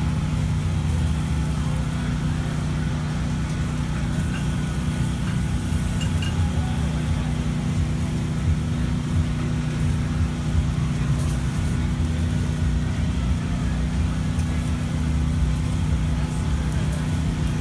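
Steady low mechanical hum that does not change, with background chatter and occasional light clinks, as at a busy street-food barbecue stall.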